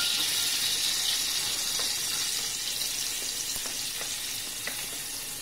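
Chopped onion dropped into hot oil in a small saucepan, sizzling with a steady hiss that slowly dies down as the oil cools around them. A few light knocks from the wooden spatula scraping the onion in.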